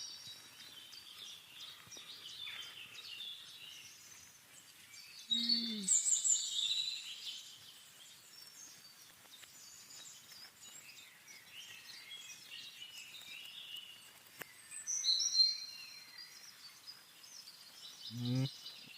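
Wild birds singing and chirping in repeated high, quick phrases and trills, loudest about a third of the way in and again about three quarters through, over a faint outdoor hiss.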